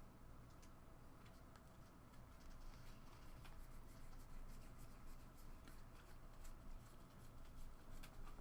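Faint handling of trading cards: light clicks and soft rustles as cards are slid and flipped through, over a low room hum.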